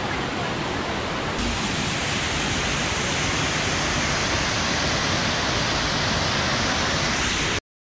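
Steady rush of water pouring over a waterfall. It gets a little louder and brighter about a second and a half in, then cuts off abruptly near the end.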